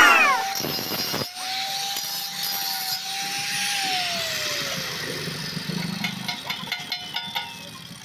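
Angle grinder on the steel angle-bar frame: a loud short squeal at the start, then the grinder's steady whine as it spins, falling in pitch as it winds down after being switched off about four seconds in. A run of light clicks and clinks follows near the end.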